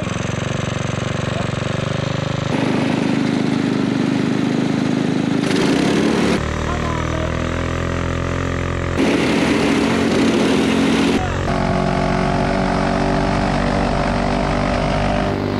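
Small go-kart engines running hard at high revs during an off-road uphill drag race, their steady pitch jumping abruptly every few seconds between the two karts' engines.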